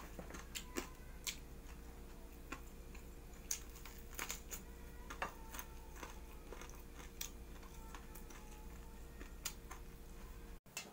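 Quiet eating sounds from a man eating by hand: irregular small clicks and smacks of chewing and of handling food on a plate, over a low steady hum.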